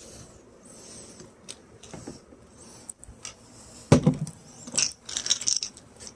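Small clicks and light metallic clatter of hand tools and screws being handled at a truck door panel, with one louder knock about four seconds in.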